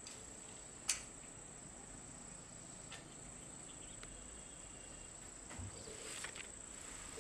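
Steady high-pitched buzz of insects calling, with a sharp click about a second in and a few fainter clicks later.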